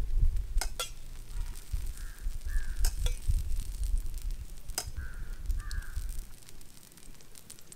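Oil being spread across a large flat iron griddle with a metal ladle: sharp clinks of the ladle against the steel bowl and plate over a low rumble. A crow caws twice, a pair of caws each time, about two and five seconds in.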